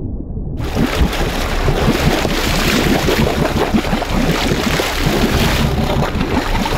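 Muffled underwater sound that cuts sharply, under a second in, to loud seawater rushing and splashing against a sportfishing boat's side, with wind buffeting the microphone.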